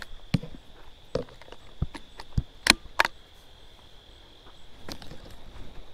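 Scattered sharp clicks and knocks from a Savage 93R17 bolt-action .17 HMR rifle being handled and readied to fire, the sharpest two in quick succession about three seconds in. Insects buzz steadily and high in the background.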